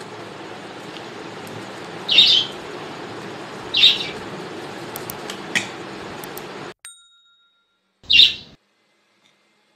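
A bird chirping: four short, high chirps roughly two seconds apart over a steady background hiss. The hiss cuts off abruptly about two-thirds of the way through, followed by a brief ding-like tone.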